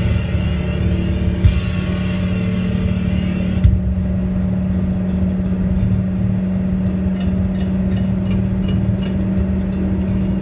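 Background music: a steady low drone, with higher layered tones that drop out about a third of the way in, and light regular ticks coming in after about two-thirds.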